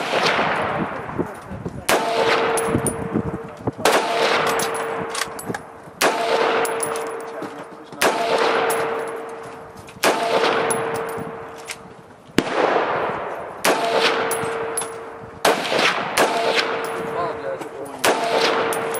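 AR-15 semi-automatic rifle fired in slow, deliberate single shots, about one every two seconds, each crack followed by a long echoing tail.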